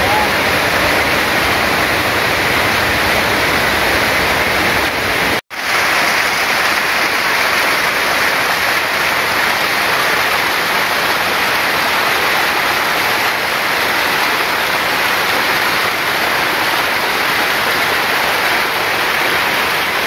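Water rushing and splashing down a small rocky cascade close by, a steady, loud white-water rush. It cuts out for an instant about five and a half seconds in.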